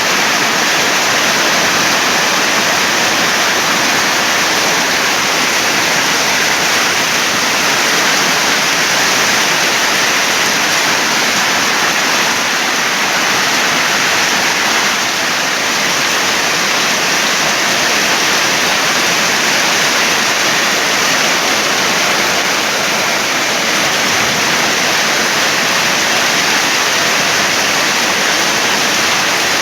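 Heavy rain pouring down in a storm, a loud, steady hiss that never lets up.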